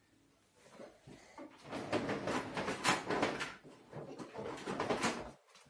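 A window roller shutter being pulled up by its strap, the slats rattling as they roll up. It starts after about a second and a half of quiet and stops abruptly near the end.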